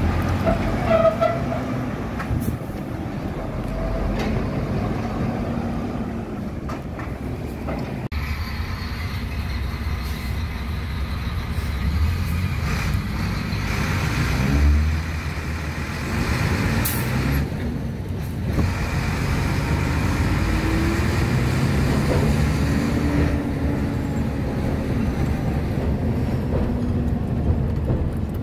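A JAC semi-truck's 340 hp diesel engine running under a 25-tonne load, heard mostly from inside the cab as the truck drives, its pitch rising and falling as it pulls and changes gear. The sound changes abruptly about eight seconds in.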